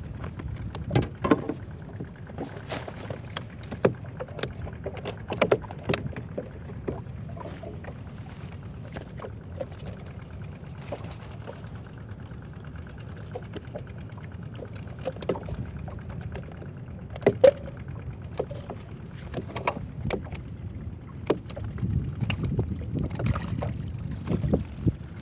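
Water lapping against a small wooden boat, with scattered knocks and clicks as fishing line and tackle are handled on board.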